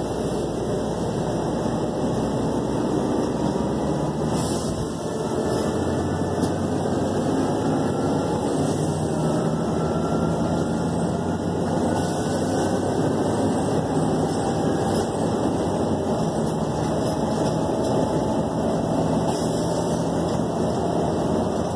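Inside a moving city bus: a steady engine drone and road noise, with faint whines that rise in pitch twice as the bus drives on.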